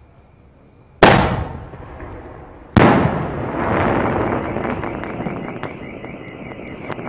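Medium-size aerial firework shell: a sharp bang as it is launched, then about two seconds later a second bang as it bursts in the air, followed by a long spray of crackling as the stars spread and fall.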